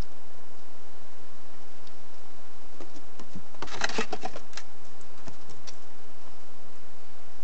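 Scrabbling and knocking of a cat and a pine marten on a feeding table as the cat pounces and the marten leaps away. It is a short flurry that starts about three seconds in and is densest a second later, over a steady hiss.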